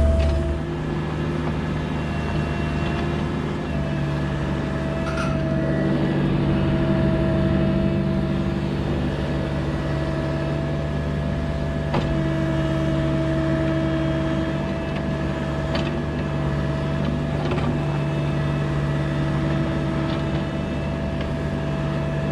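Mini excavator's diesel engine running steadily under work, heard from the cab, with a few sharp knocks, the clearest about twelve seconds in.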